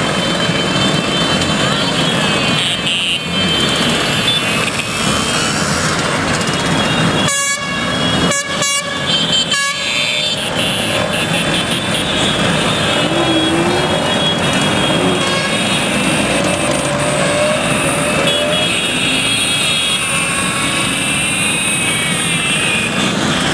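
A long stream of Vespa scooters riding past, their small engines running together in a dense, steady din, with scooter horns beeping now and then. The sound cuts out briefly three or four times about eight to ten seconds in.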